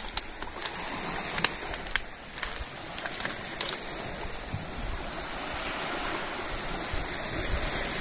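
Small sea waves washing on a pebble shore: a steady hiss of surf, with a few light clicks in the first few seconds.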